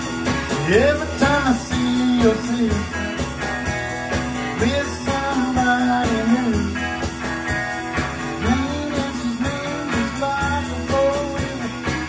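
A small band playing live: drum kit keeping a steady beat with bright cymbals, electric bass, and electric and acoustic guitars, with a melody line sliding up and down in pitch over the top.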